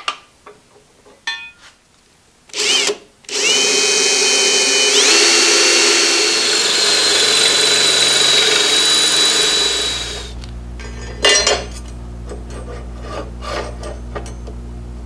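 Cordless drill boring a hole through a metal plate: a short blip, then about seven seconds of steady running whose whine steps up in pitch partway through, then it stops. A few light metal clicks come before it and a steady low hum after it.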